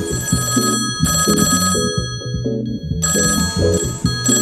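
Telephone ringing in two spells, over background music with a repeating chord pattern.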